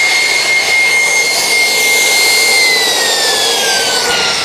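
Saphir-5 auxiliary power unit's small gas turbine running with a high-pitched whine over a rush of air; a little past halfway the whine starts to fall steadily as the turbine spins down.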